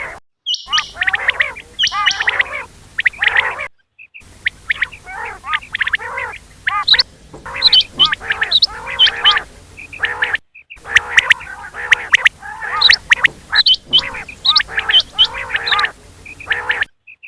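Quail calling over and over in quick series of short, arching notes, several calls overlapping. The recording drops to dead silence for a moment several times, at splices in the audio.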